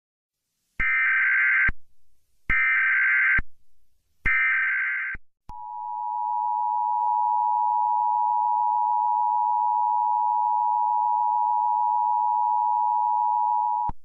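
Emergency Alert System broadcast tones: three short bursts of digital SAME header data, each just under a second with a pause between, then the steady two-tone attention signal for about eight seconds, cutting off just before the end. The sequence opens the required weekly EAS test.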